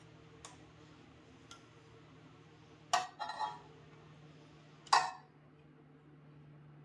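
Metal parts and hand tools clinking against each other: a few faint clicks, a quick cluster of sharp clinks about three seconds in, then one more sharp clink about two seconds later, over a faint steady hum.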